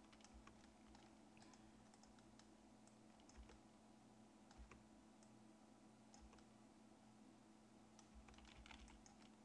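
Faint, scattered clicks of a computer keyboard, the Tab key tapped repeatedly, over a low steady hum of near-silent room tone.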